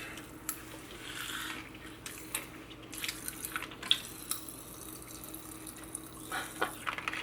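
Popping candy crackling in the mouth: scattered small pops and clicks, irregular and fairly quiet.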